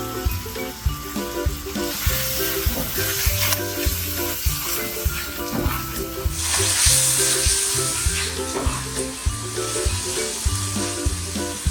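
Food sizzling and frying in a pot, the hiss swelling about two seconds in and loudest for a couple of seconds from about six seconds in, with some stirring, under cheerful background music with a bouncy bass.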